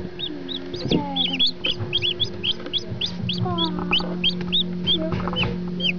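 Newly hatched chicks peeping continuously: short, high-pitched chirps, several a second.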